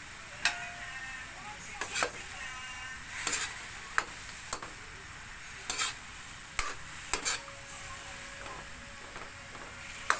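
A metal spatula stirs beef slices in an aluminium wok, scraping and knocking against the pan about ten times, some strikes ringing briefly. Underneath is a steady sizzle from the beef simmering in its marinade and broth.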